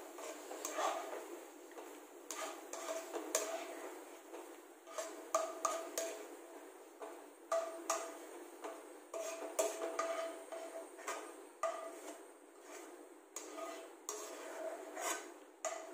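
A metal spoon clinking and scraping against a metal pan, about two dozen irregular strikes, many leaving a short ringing tone, as the fried garlic and ginger are scooped out of the oil.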